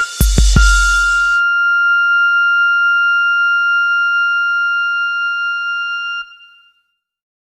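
The last hits of a rap beat's kick drum and bass end about a second and a half in. A single steady, high electronic beep-like tone is left, held for several seconds before it cuts off and fades.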